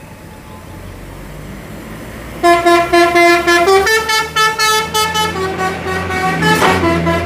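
Tour bus's multi-tone telolet horn starting about two and a half seconds in and playing a tune of several notes, the pitch stepping up and down, over the low hum of the bus's engine as it drives past close by. A short rush of noise comes near the end.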